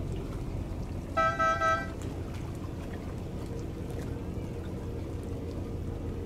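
A horn gives three short toots in quick succession about a second in, over the steady low rumble of a passing fast passenger ferry.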